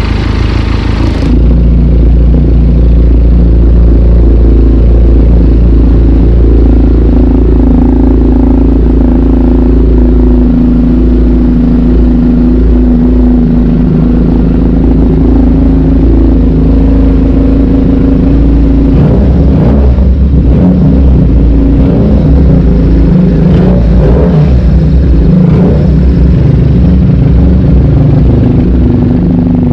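Benelli 302R's 300 cc parallel-twin engine, breathing through an aftermarket slip-on exhaust, idling steadily. From about two-thirds of the way through, the throttle is blipped several times, each time revving briefly and dropping back to idle.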